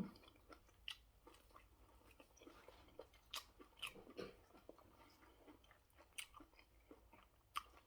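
Faint chewing of food, with scattered short mouth clicks and smacks every second or so.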